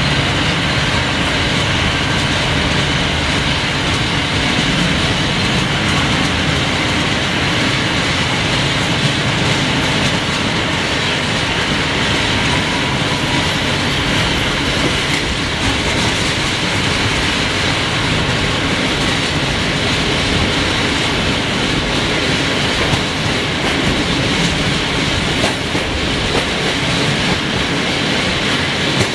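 Freight train of high-sided open wagons rolling past close by: a steady rumble of steel wheels on the rails, with occasional clacks over rail joints.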